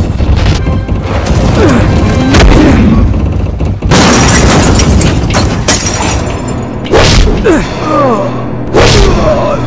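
Action-film soundtrack: dramatic background music with heavy punch and impact sound effects. A loud explosion comes about four seconds in and rumbles on for a couple of seconds.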